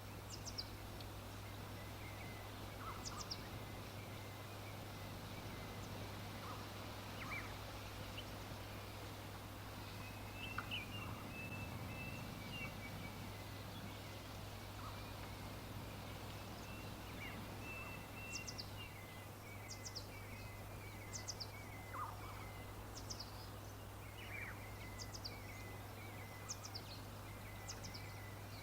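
Wild birds singing and calling: short, high, falling chirps and twittering phrases come every second or so over a constant background hiss. A steady low hum runs underneath.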